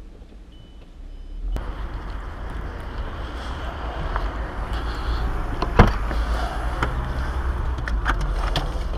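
Low rumble inside a car, then from about a second and a half in a steady outdoor noise of road traffic. A sharp knock comes about six seconds in, and a few lighter clicks come near the end.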